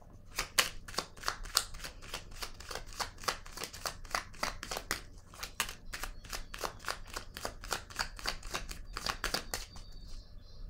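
A deck of cards being shuffled by hand: a quick run of crisp card slaps, about four or five a second, that stops shortly before the end.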